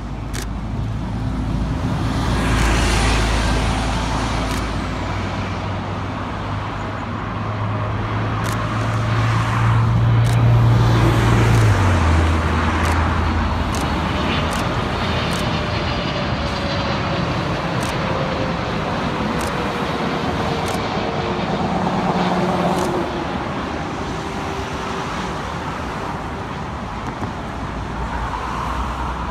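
Boeing 777-300ER's GE90 jet engines on final approach: a roar that builds as the airliner passes low overhead, then a whine that falls in pitch as it moves away toward the runway, over steady road traffic.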